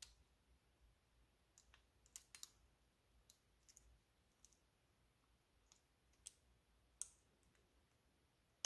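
Near silence broken by faint, scattered small clicks and taps: insulated female spade connectors being pushed onto the metal tabs of an illuminated push button and handled in the fingers.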